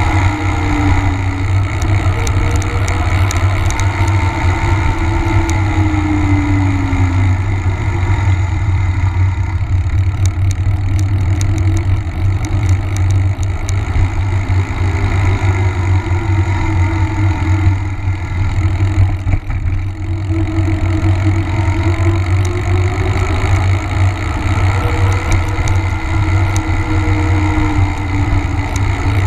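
Wind buffeting the microphone of a bike-mounted camera, over the rumble of knobby mountain-bike tyres rolling on asphalt at speed. A faint hum rises and falls in pitch now and then as the speed changes.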